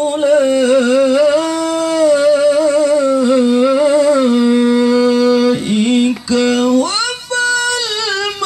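A male qori (Quran reciter) chanting a Quran passage in the melodic mujawwad style through a handheld microphone, with long held notes ornamented by wavering turns. After a short pause about six seconds in, his voice climbs to a higher sustained note.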